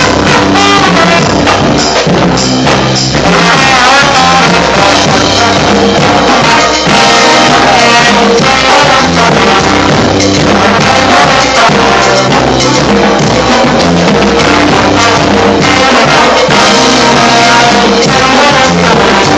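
Loud live brass band music with drums and percussion, the horns holding and sliding between notes over a steady beat.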